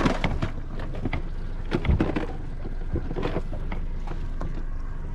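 Hands rummaging through a tool bag on a small boat: scattered knocks and clatters, the loudest about two seconds in, over steady low wind and water noise.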